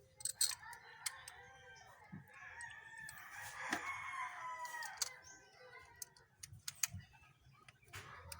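A long, drawn-out bird call lasting about four seconds, with a few sharp clicks around it.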